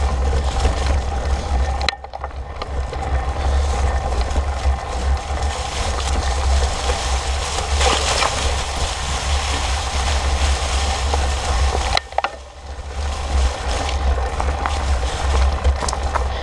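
Fat bike rolling over a trail of dry fallen leaves, heard from a handlebar-mounted camera: constant wind rumble on the microphone with tyre noise and clicks and rattles from the bike. The sound drops briefly twice, about two seconds in and about twelve seconds in.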